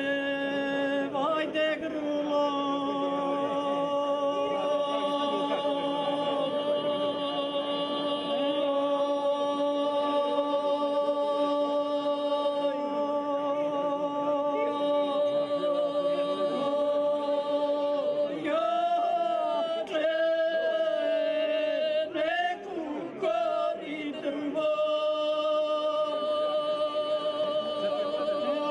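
Two women singing unaccompanied in the traditional Serbian izvika style. They hold one long, steady note for many seconds, break into a wavering, ornamented phrase about two-thirds of the way through, then settle on another long held note.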